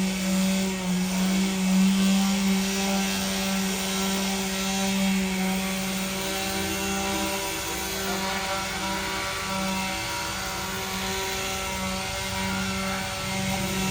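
A large machine running with a steady droning hum, one deep tone with higher ones stacked above it.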